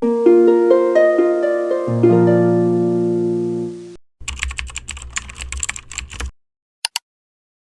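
A harp-like run of plucked notes, joined about two seconds in by a low held note, ringing until it stops at about four seconds. Then come about two seconds of rapid computer-keyboard typing clicks, and two quick clicks near the end.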